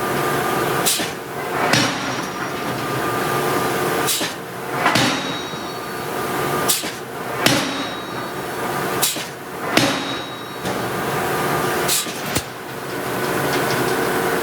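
Hydraulic forging hammer striking steel, about ten heavy blows in five pairs, each pair less than a second apart and the pairs two to three seconds apart. Each blow leaves a short metallic ring, over a steady machinery hum.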